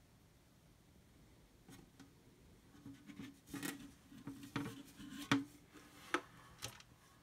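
Painted metal cover of an old NuTone wall exhaust fan being worked loose and lifted off its housing by hand: scraping and rattling of metal on metal starting about two seconds in, with a few sharp clicks near the end.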